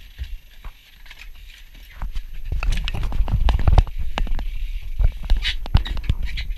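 Irregular knocks and rubbing of a handheld camera being handled and turned about, over a low rumble. It gets louder from about two seconds in.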